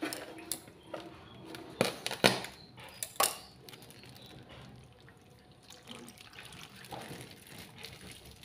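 Coconut milk poured from a plastic bag over crabs in a stainless steel pot, a wet trickle and splash. A few sharp knocks about two to three seconds in.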